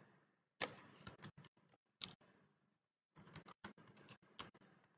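Faint computer keyboard keystrokes: scattered taps in a few short clusters, as a task name is typed.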